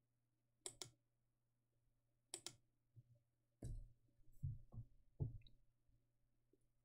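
A few faint sharp clicks, one close pair near the start and single ones later, with a cluster of soft knocks from handling things at a desk, over a low steady electrical hum.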